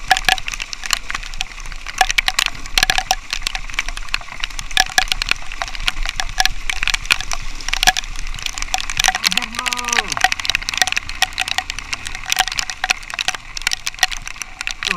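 Dense, rapid crackling of raindrops striking the motorcycle rider's camera and its microphone, with a faint steady motorcycle engine underneath.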